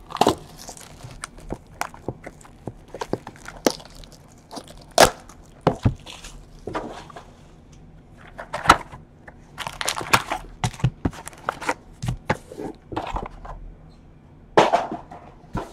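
A cardboard trading-card hobby box being handled and opened, with its card packs taken out and set down in a stack: scattered taps, knocks and rustles.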